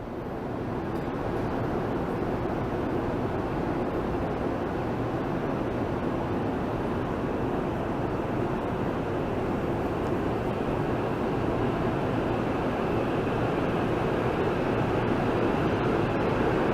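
Shinkansen train running along the station platform track, a steady rumble and rush that grows slightly louder near the end.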